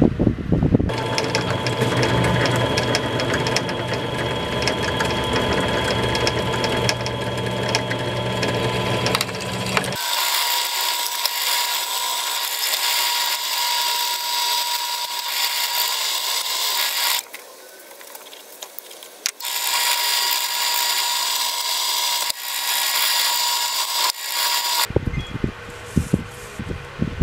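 Bench drill press running and boring into a wooden handle scale: a steady motor hum with cutting noise, which drops away briefly after about 17 seconds and then comes back. The sound changes abruptly in several places, and a few light knocks follow near the end.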